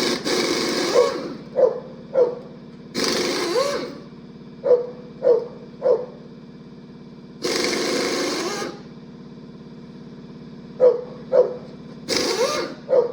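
Impact wrench run in four short bursts, loosening the cylinder head bolts on a 427 big-block Chevy. Between the bursts a dog barks about eight times.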